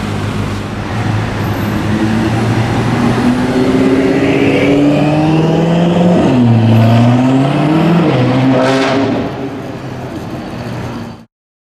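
BMW M6's twin-turbo V8 breathing through a full Akrapovic exhaust with decat pipes, accelerating away hard. The engine note climbs, drops at an upshift about six seconds in, climbs again and shifts once more, then fades as the car pulls off, before the sound cuts off suddenly near the end.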